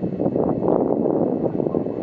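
Wind buffeting the microphone: a steady, loud rush of noise.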